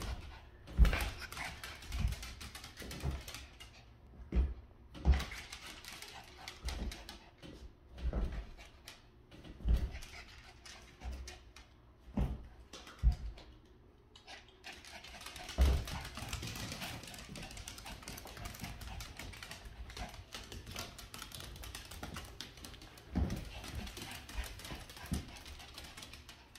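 A small fluffy white spitz-type dog making short, sharp sounds every second or two, with a steadier clicking from about halfway on.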